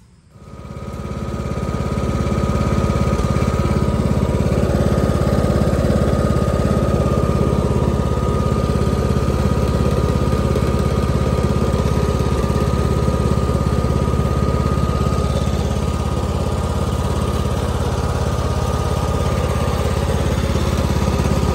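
Craftsman riding lawn tractor's Kohler Courage engine coming up over the first couple of seconds, then running steadily under load while towing a pop-up camper, with a thin steady whine above the engine note.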